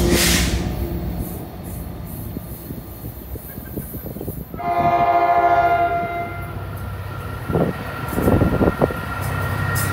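Train horn sounding one steady blast of about two seconds, a little before the middle, after the noise of a passing train has faded. Near the end an approaching diesel locomotive's engine rumble builds, with a few short knocks.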